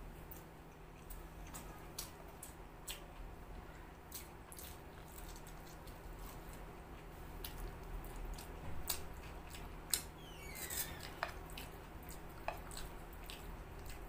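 Faint, scattered clicks and scrapes of a metal fork on a terracotta plate as noodles are picked up, with soft wet eating sounds. A short squeak falling in pitch about ten seconds in.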